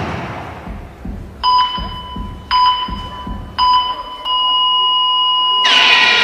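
Electronic countdown beeps in the dance performance's music mix: three short beeps about a second apart, then one long beep at the same pitch, as the previous track fades out. A loud new track comes in near the end.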